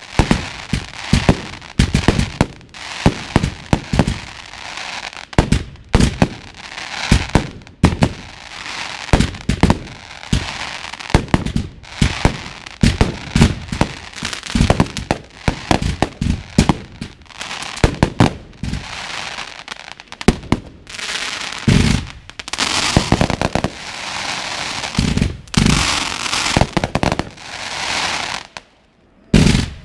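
Ground-fired consumer fireworks going off in quick succession: launch thumps and bangs of bursting shells, close together. In the later part there is more dense crackling from glitter stars, and the firing stops briefly just before the end.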